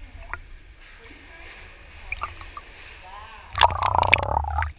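Seawater lapping and sloshing at the surface. About three and a half seconds in, the camera dips underwater and a loud rush of bubbling, splashing water is heard for about a second, cutting off suddenly.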